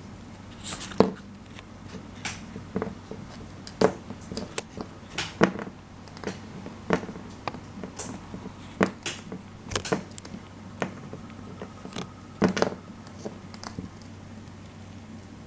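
Irregular small taps and clicks, roughly one or two a second with uneven gaps, from a budgerigar pecking and moving about among its toys on a cloth-covered table. The sharpest clicks come about a second in and again around twelve and a half seconds.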